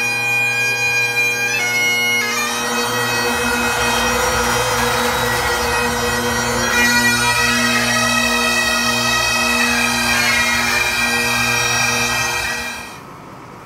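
Several Highland bagpipes playing a tune together over their steady drones. The pipes stop near the end.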